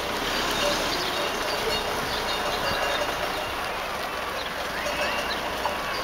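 A mixed flock of sheep, donkeys and dogs on the move along a road: many hooves shuffling and clopping on the surface, with scattered short animal calls.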